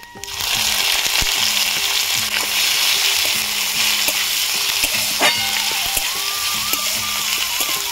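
Sliced onion tipped into hot oil and whole spices in a metal karai starts sizzling loudly about a third of a second in and keeps frying steadily while a metal spatula stirs it. There is a sharp scrape of the spatula about five seconds in.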